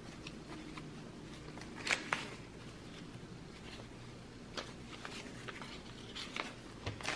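Faint rustling and flicking of paper banknotes as a stack of bills is counted through by hand, with a couple of sharper flicks about two seconds in.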